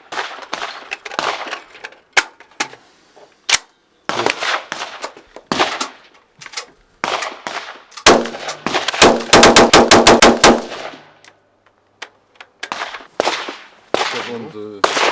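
Steyr AUG (Stg 77) 5.56 mm bullpup rifle firing on an indoor range: separate shots about a second apart, then a fast string of about a dozen shots from about 8 to 10.5 seconds in, each ending in a short echo.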